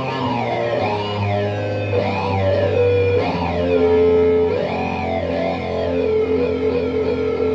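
Electric guitar played through an EarthQuaker Devices Data Corrupter, a synth-like fuzz pedal that adds tracked octave voices. Held low notes sit underneath while the upper tones swoop up and down in repeating arcs.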